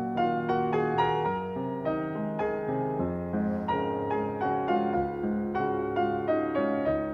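Background piano music: a melody of struck notes, a few each second, each fading after it is played.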